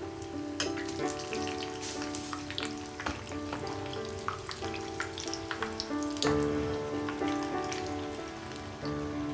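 Bread pizza pockets frying in hot oil, a steady sizzle with many irregular sharp crackles and pops. Soft background music with sustained notes plays along.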